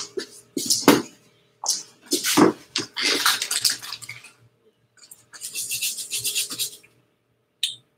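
A few sharp knocks, then two stretches of scrubbing, rustling noise from nearby handling of objects.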